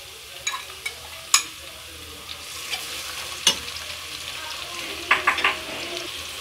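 Chopped onions and freshly added onion paste sizzling in hot oil in a non-stick wok while being stirred. Metal utensils knock against the pan in a few sharp clicks, several in quick succession near the end.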